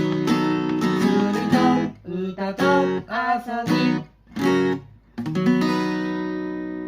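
Acoustic guitar music, strummed: steady strumming gives way to short separate chords with gaps, then a final chord a little over five seconds in that rings out and slowly fades.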